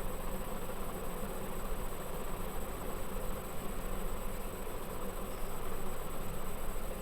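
Steady buzzing background hum and hiss, even throughout with no distinct events.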